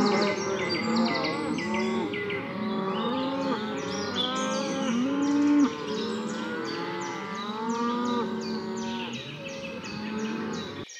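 A herd of cattle mooing, many long calls overlapping one another without a break, over a constant layer of high chirping. The calls cut off near the end.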